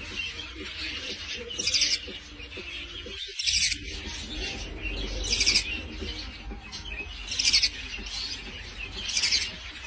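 Budgerigars chirping and chattering, with a cluster of sharp high chirps about every two seconds over continuous chatter.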